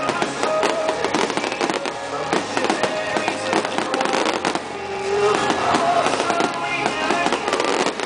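Fireworks display: rapid bangs and crackling shells going off one after another, with music and voices underneath.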